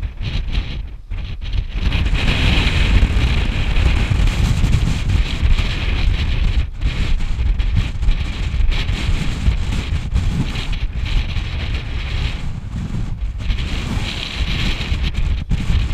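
Wind buffeting the camera's microphone: a loud, gusting low rumble with a hiss above it, cutting out for a moment a few times.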